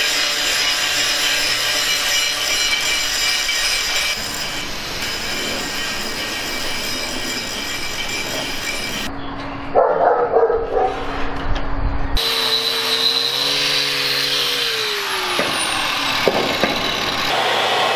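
Angle grinder running against steel, the sound changing abruptly between edited shots. Loud sharp noises come in a short run about ten seconds in, and later a steady humming tone rises a little and then falls away.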